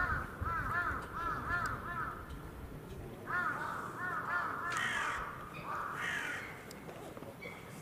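A crow cawing in quick runs of short calls, several in a row, with a pause about two seconds in before the calling resumes.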